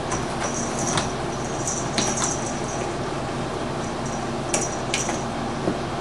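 A cat toy rattling and clicking as a cat paws and bats at it: a handful of light, sharp clicks and clinks over a steady background hiss, with a pair about two seconds in and another pair near the five-second mark.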